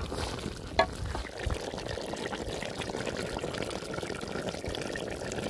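Beef and tomatoes cooking in their own released juices in a large metal pot, a steady bubbling sizzle, with one sharp clink against the pot about a second in as the tomatoes are mashed.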